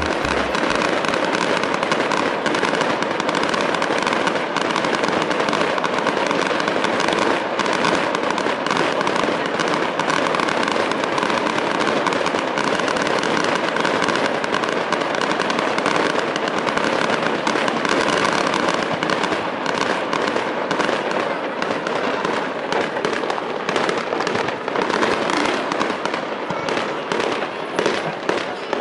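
Aerial fireworks going off in a continuous barrage, a dense run of bangs and crackles with no pause.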